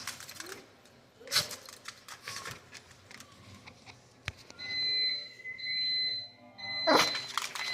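A Shih Tzu giving short, sharp sneezes, about a second in and again near the end. In between come two long electronic beeps of about a second each.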